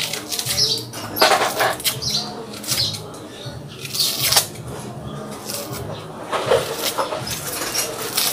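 Dry, papery bulb skin crackling and rustling as it is peeled off a small bulb with a kitchen knife, with irregular scrapes and ticks of the blade.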